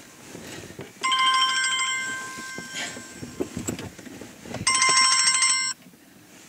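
Telephone ringing with an old-style bell ring, twice: the first ring fades out, the second, a fast trill, cuts off suddenly as the call is answered.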